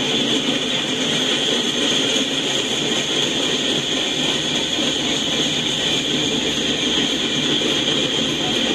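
Freight cars rolling past on the rails, heard through a live train cam: a steady noise of wheels on track, unbroken throughout.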